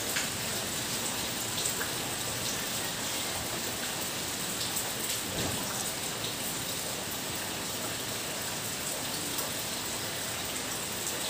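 Steady rain: an even hiss with scattered faint ticks.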